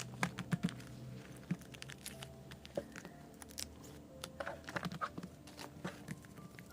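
Scattered light clicks, taps and faint rustles of hands handling plastic-wrapped merchandise and cards, irregular and brief, with faint music underneath.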